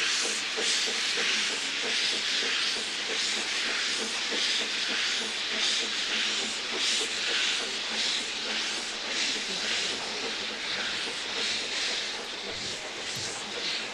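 Narrow-gauge steam locomotive working a train, a loud steady hiss of steam from its open cylinder drain cocks over slow, regular exhaust beats, easing a little near the end as it draws away.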